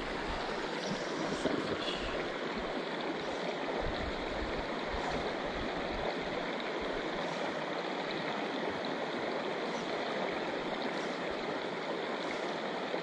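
Shallow creek water running steadily over rocks in a riffle.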